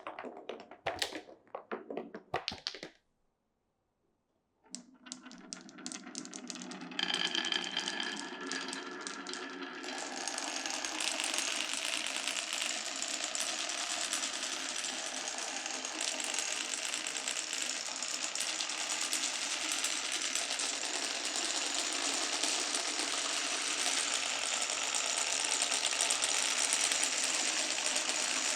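Glass marbles clicking in a wooden marble run, then a break of dead silence. After that a dense, continuous rattle of many marbles rolling and clattering through the track builds up over a few seconds and holds steady.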